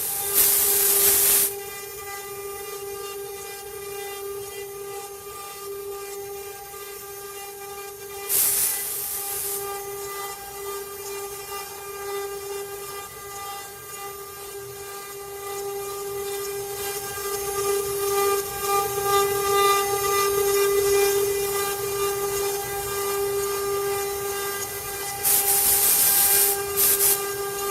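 Multi-head CNC wood carving router running: its spindles give a steady high whine with overtones. Three times a loud hiss rises over it for a second or so: at the start, about eight seconds in, and near the end.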